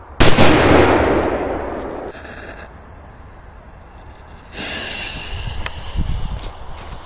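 A single firecracker (petard) blast, sharp and very loud, its boom dying away over about two seconds. From about four and a half seconds in, a steady rushing noise with a few light knocks.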